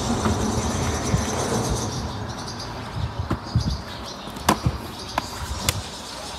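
Wind buffeting the microphone in uneven low gusts, under a faint, steady high chirring. Three sharp clicks come in the second half.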